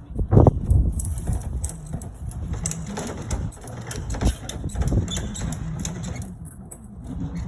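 Bricklaying work: scattered knocks and scrapes of a trowel on brick and mortar, with the strongest knock about half a second in, over a low rumble.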